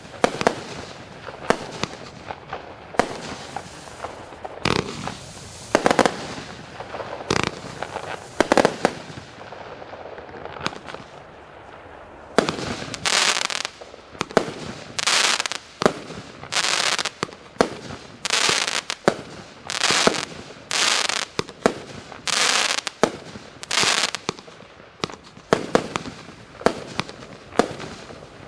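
238-shot compound consumer fireworks cake (1.4G) firing: a rapid string of sharp cracks and bangs from shots launching and bursting. About halfway through it changes to a regular series of longer hissing bursts, roughly one a second, with single cracks between them.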